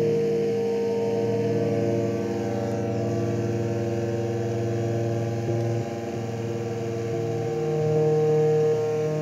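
Ciat-Lonbarde Rollz-5 synthesizer drone: avdog oscillators run through gong filters and Cocoquantus delays, sounding a steady chord of several held tones with one mid-pitched tone loudest. The lower tones shift a few times.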